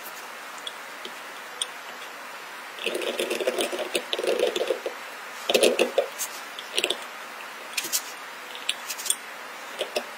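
Steel seal-carving knife scraping and chipping into a stone seal, in quick runs of short scratches and clicks, loudest about six seconds in.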